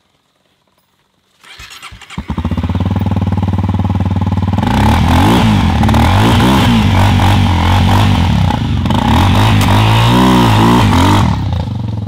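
Honda CRF250L's single-cylinder four-stroke engine starting about a second and a half in. It runs loudly and is revved up and down several times, then cuts off shortly before the end.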